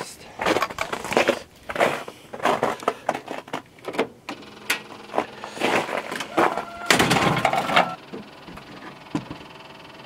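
Irregular crunching steps and clunks, then a cold Kubota compact tractor's diesel engine is cranked over and started about seven seconds in, settling into a steady idle.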